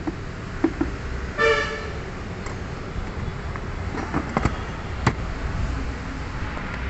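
A car horn toots once, briefly, about a second and a half in. Around it come a few sharp clicks and knocks of the plastic air-filter housing being handled and snapped back into place, over a steady low rumble.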